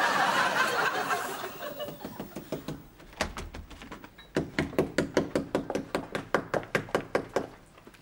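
Studio audience laughing, dying away over the first two seconds or so. About four seconds in, a quick rhythmic scratching starts, about five strokes a second, as a wall is worked by hand.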